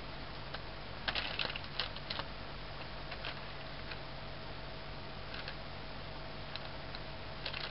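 Plastic bag crinkling and crackling under a kitten's pawing: a cluster of quick crackles about a second in, a few scattered ones after, and another pair near the end, over a steady background hiss.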